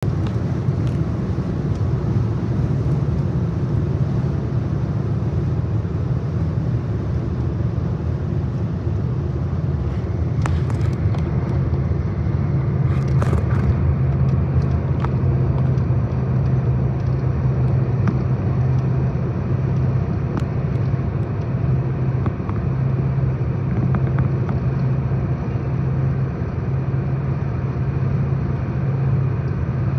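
Steady road and engine noise heard inside a car cabin at highway speed, with a strong low hum. A few brief clicks come about a third of the way in.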